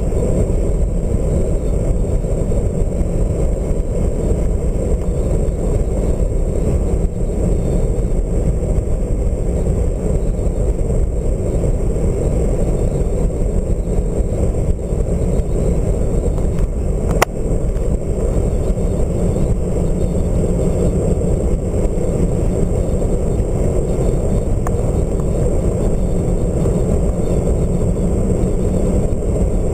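Steady road and wind noise of a moving car, heard from inside the cab. A single sharp click a little past halfway through.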